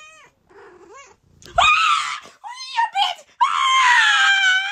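A woman screaming at a very high pitch: a couple of short yelps, then loud screams, the last one long and sliding down in pitch near the end.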